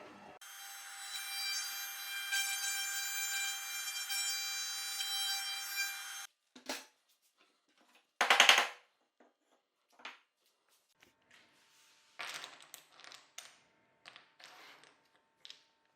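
Workshop tool sounds on wood: a steady machine whine with noise runs for about six seconds and cuts off suddenly. It is followed by a series of short scrapes and knocks, the loudest about two seconds after the stop.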